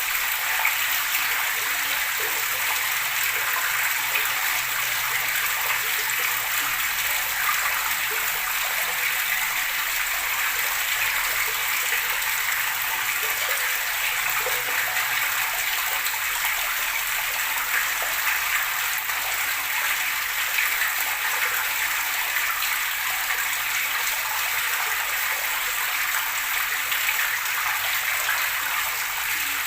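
Flowing water gurgling and rushing steadily, without a break.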